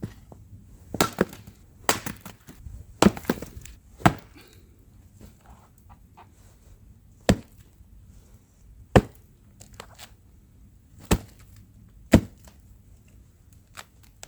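Wood being chopped with an edged tool: about ten sharp strikes at irregular intervals, a few in quick pairs near the start and then spaced a second or two apart.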